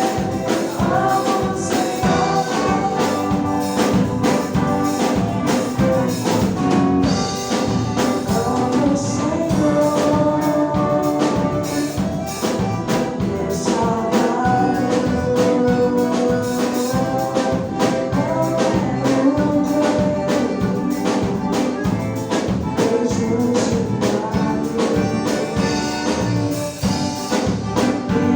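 A band playing gospel music, with sustained melody lines over a steady beat.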